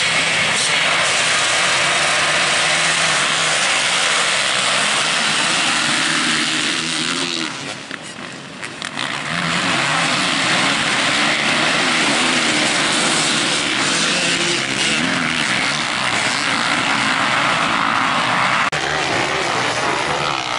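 A pack of motocross bikes' engines running together, loud and dense, their pitch rising and falling as the riders rev and shift. The level drops briefly about eight seconds in, then the bikes are running hard again.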